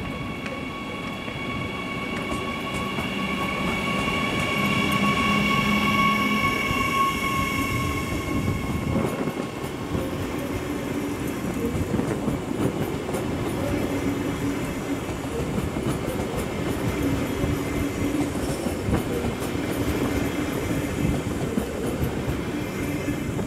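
DB class 147 (Bombardier TRAXX AC3) electric locomotive hauling an IC2 double-deck intercity train out of the station past the listener. Its traction whine, several steady tones, rises in loudness as it comes by. After about eight seconds the double-deck coaches roll past with a steady rumble and the clickety-clack of wheels over rail joints.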